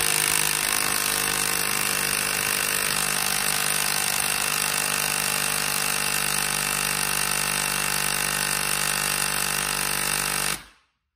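Milwaukee M12 Fuel Stubby 3/8-inch brushless cordless impact wrench hammering steadily for about ten and a half seconds, then cutting off suddenly. It does not break loose the nut, which is torqued to 220 foot-pounds.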